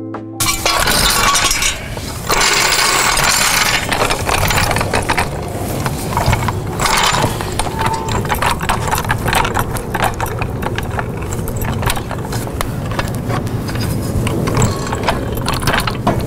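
Aluminium floor jack being pumped to raise a car, with many irregular metallic clicks and clanks from the handle and lift mechanism over a constant rushing noise.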